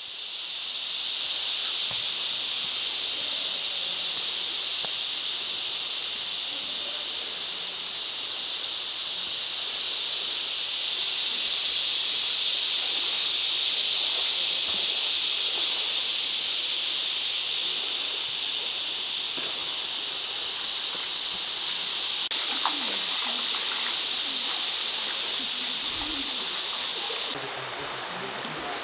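Steady, high-pitched insect chorus droning without a break, dropping in level and changing near the end.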